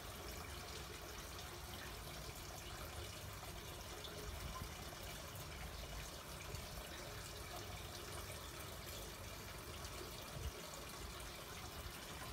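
Faint steady rushing noise, with a soft low thump about ten seconds in.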